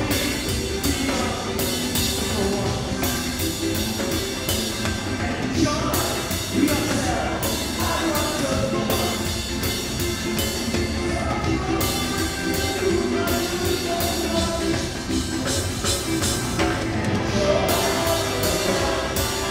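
A live band playing: a drum kit with cymbals keeps a steady driving beat under the band, with singing over it.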